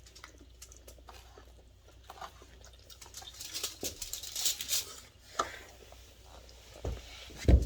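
Eating at a table: scattered small clicks and mouth smacks, a crinkly rustle around the middle, and two low thumps near the end, the second the loudest.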